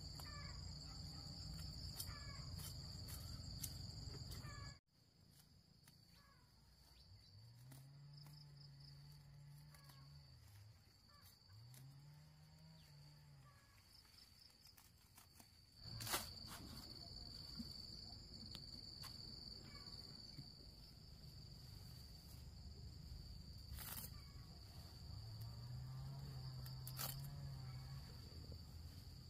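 Insects trilling steadily in one high, continuous tone against a quiet rural background. The sound drops away abruptly about five seconds in and comes back louder past the middle, with a sharp click.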